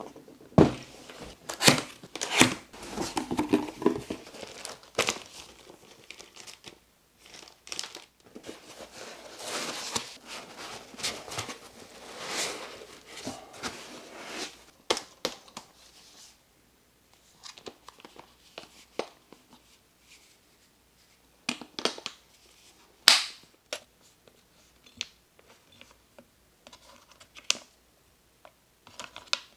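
Rustling and crinkling of packaging as a boxed airsoft minigun is unpacked and handled, with scattered clicks and knocks of its plastic parts.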